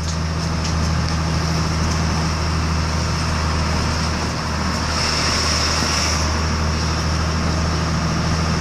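Vehicle engine and road noise heard from inside the cabin while driving: a steady low drone with a hiss on top that swells briefly about five seconds in.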